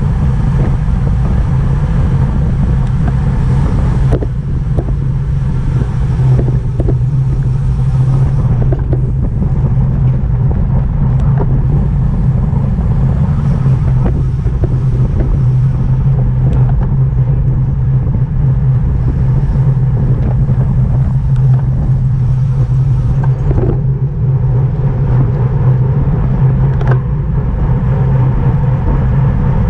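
Steady wind rushing over the microphone and road rumble from a racing bicycle at speed, with scattered small clicks and knocks from the bike.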